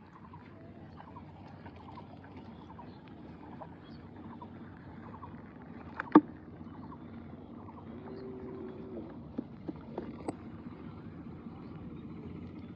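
Bamboo fish traps being handled, giving one sharp loud knock about six seconds in and a few lighter knocks around nine to ten seconds. A cow lows faintly about eight seconds in, over a steady open-air background.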